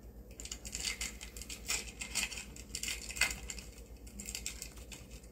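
A foil trading-card pack wrapper being torn open and crinkled by hand: a dense crackling rustle for about four seconds, with a few sharper crinkles in the middle.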